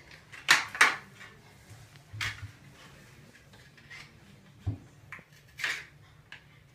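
Clear hard-plastic toothbrush package being handled and pried open: a handful of short, sharp plastic crackles and clicks, the loudest two close together near the start.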